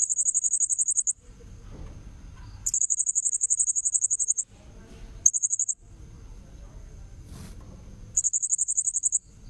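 Blue-crowned hanging parrot (serindit) lure recording: four bursts of a very high, rapid buzzing trill, from about half a second to nearly two seconds each, with short gaps between, over a faint steady high whine.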